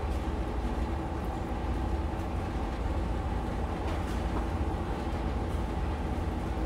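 A steady low mechanical rumble with a constant mid-pitched hum over it, unchanging throughout.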